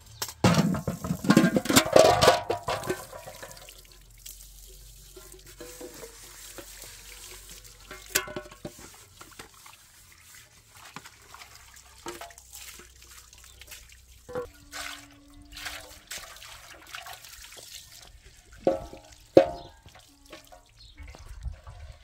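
Water pouring and splashing as metal cooking pots are rinsed at a basin, with scattered clinks of the pots. A loud jumble of sound comes in the first few seconds, and a couple of sharp ringing metal clanks come near the end.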